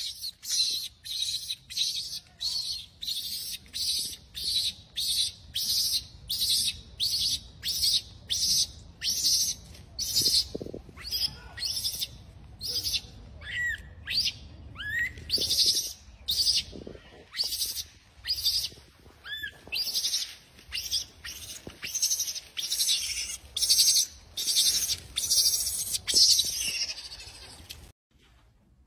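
High-pitched wildlife calls repeated in a steady series, about four every three seconds, with a few short chirps in the middle. The series stops abruptly about a second before the end.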